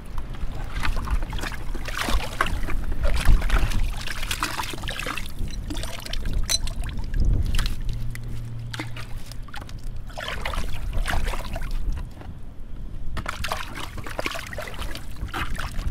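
A spade scooping and churning in a waterlogged privy pit: wet mud and water sloshing, dripping and trickling off the blade, with gritty scraping and clicking as the steel grinds against broken window glass in the muck.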